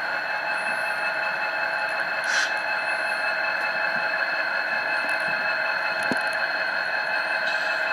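Sound decoder in an HO-scale SDF40-2 model locomotive playing its diesel prime mover sound through a small speaker while the model moves ahead: a steady electronic drone with high, level whining tones.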